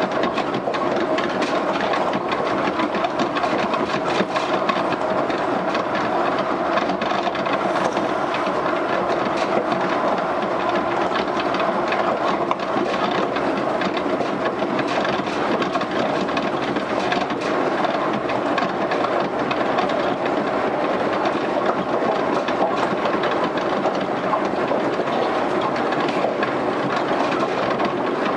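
Interior running noise of a Yukarigaoka Line 1000-series rubber-tyred people mover, heard from an unpowered trailer car: a steady rolling rumble with a faint hum and frequent small clicks and knocks from the running gear.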